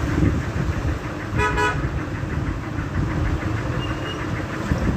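Steady road traffic rumble, with one short vehicle horn toot about a second and a half in.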